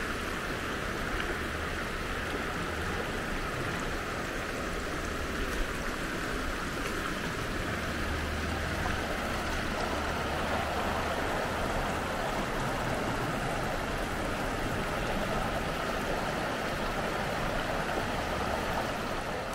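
Steady rush of the Black Water River flowing over rocks.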